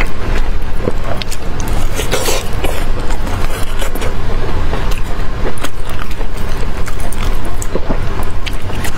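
Gloved hands squeezing and tearing a large piece of sauce-braised meat, making short wet clicks and smacks, over a loud steady low rumble.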